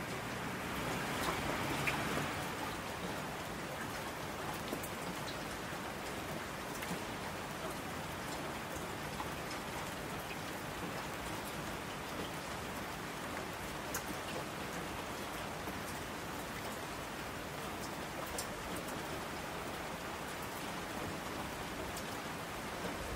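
Steady rain falling, with individual drops ticking sharply now and then; slightly louder in the first two seconds.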